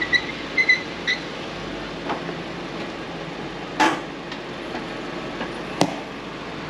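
A taxi car stands running with a steady low hum. A few short, high beeps come in the first second, then a sharp knock about four seconds in and another near six seconds.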